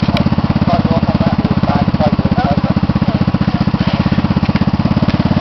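Small off-road buggy engine idling with a steady, rapid putter that holds the same speed throughout.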